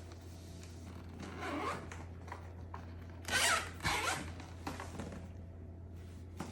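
A zipper on a backpack-style car fridge's fabric compartment being pulled open in a few short strokes, the loudest about three and a half seconds in.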